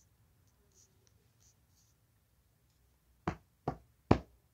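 Three quick sharp knocks or taps on a hard surface about 0.4 seconds apart near the end, the last the loudest, after a few faint clicks of handling.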